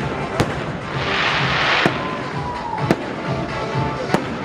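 Fireworks display: three sharp bangs of shells bursting, with a loud hissing, crackling burst between the first and second.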